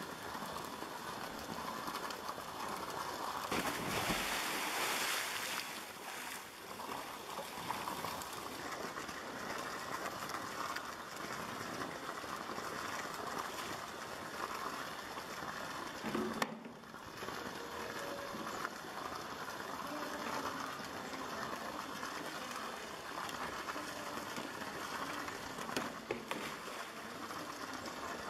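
Steady lapping and running water of a polar bear's pool, with a louder splashing of about two seconds some four seconds in as the polar bear goes into the water.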